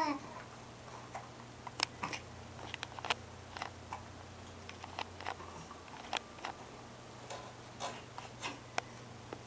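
Baby hiccuping: short sharp clicks every second or two, with fainter clicks in between, over a low steady hum.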